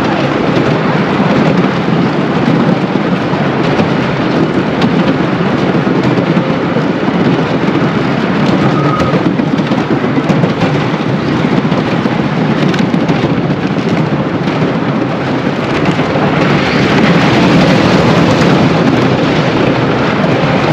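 1920 Scenic Railway wooden roller coaster train running along its track: a loud, continuous rumble and clatter of the wheels on the wooden structure, growing somewhat louder near the end.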